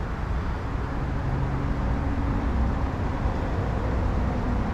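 Steady low rumbling background noise with a faint hum and no distinct events.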